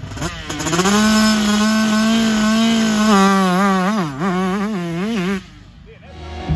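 Small two-stroke youth motocross bike engine running and revving, with quick throttle blips in the second half, then cutting off suddenly about five and a half seconds in.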